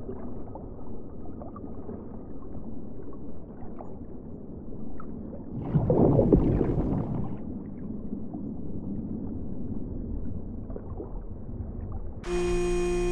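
Muffled underwater sound as a sinking 3D-printed model battleship goes down, with a louder gurgle of escaping air bubbles about six seconds in. Music starts near the end.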